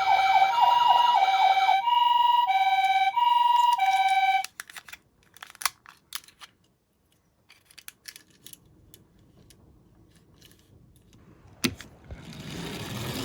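Electronic two-tone siren of a toy Tomica ambulance, alternating a high and a low tone and stopping about four seconds in. Faint clicks and taps of plastic toys being handled follow, and a rising rumble starts near the end.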